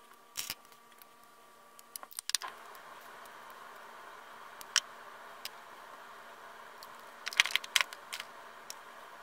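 Small hard clicks and clatter of makeup containers and tools being handled: a couple of clicks about half a second in, a cluster around two seconds, one or two near five seconds, and a quick rattling run near the end.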